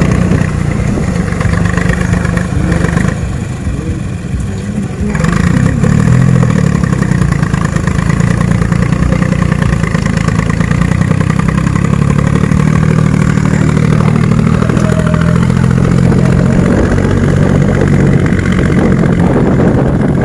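Engine of a tractor excavator running steadily, dipping in loudness for a couple of seconds and then running louder from about five seconds in.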